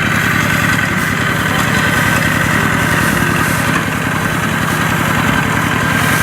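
Small farm tractor's engine running steadily, with a fast, even beat.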